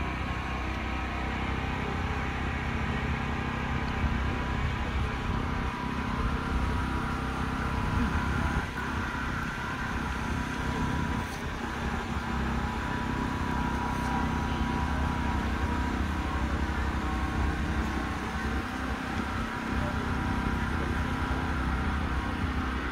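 Steady outdoor city background noise: a low, even hum of distant road traffic.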